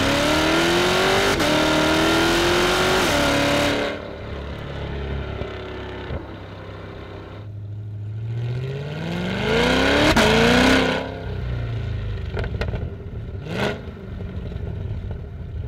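Chevrolet C8 Corvette's V8 with Kooks long-tube headers and green catalytic converters, heard from the cabin through open windows, revving up hard under acceleration, its pitch rising for about four seconds before dropping back as the throttle closes. It pulls hard again from about eight seconds in for another three seconds, then cuts off, with a few short sharp sounds near the end.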